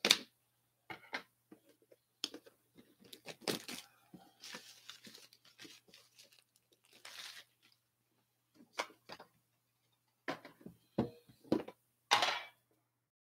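Plastic wrapping torn and crinkled off a hockey card tin, with irregular rustles and clicks as the tin is handled and opened.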